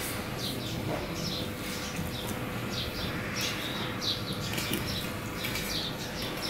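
Small birds chirping over and over, short high falling chirps several times a second, over a faint steady hum.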